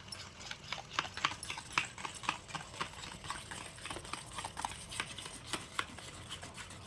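Homemade glue-and-baking-soda slime being mixed, making a run of small, irregular sticky clicks a few times a second.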